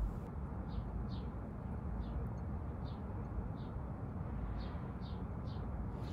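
A small bird calling: a series of short, high chirps, roughly one or two a second, over a steady low outdoor rumble.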